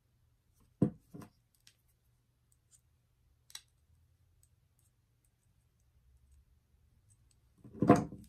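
Round-nose jewelry pliers handled over a wooden table: two sharp clicks about a second in, a faint tick a few seconds later, then a louder clatter near the end as the pliers are set down on the tabletop.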